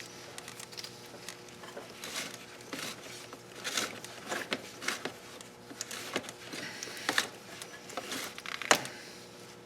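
Paper towel rustling and rubbing as an engine surface is wiped clean, in irregular short strokes with a sharper scrape near the end.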